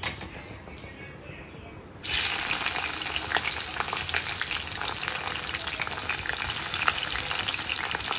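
Hot oil sizzling softly in a kadhai. About two seconds in, slit green chillies go in and it turns to a loud, crackling sizzle as they fry, which keeps going.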